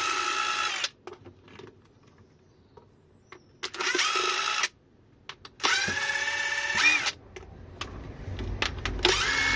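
Electric screwdriver backing long screws out of an e-bike battery's plastic end cap, running in four short runs of a motor whine that climbs in pitch and then holds. The runs come at the start, about four seconds in, about six seconds in, and one begins near the end.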